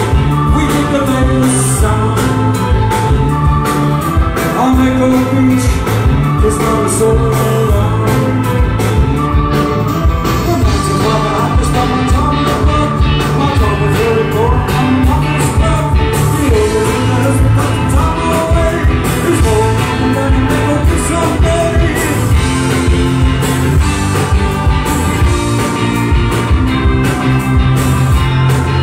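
Live rock band playing a song: a man singing over electric guitar, bass guitar and drums with a steady beat, recorded on a mobile phone from the audience.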